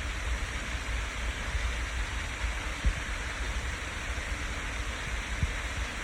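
Steady rush of falling water, an even hiss with no change, with a few soft low thumps.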